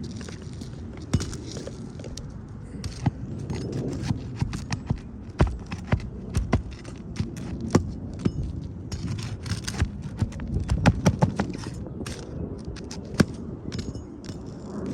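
Footsteps and scuffs on an asphalt shingle roof, with many irregular sharp clicks and knocks of boots and tools as a roofer climbs to an upper roof section.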